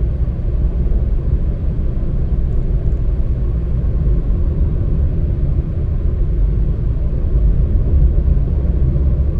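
Steady low rumble of a vehicle on the move, road and wind noise, with no distinct engine note or separate events.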